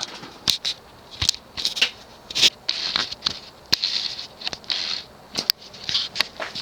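Irregular clicks, taps and short scraping sounds, as of something being handled close to the microphone.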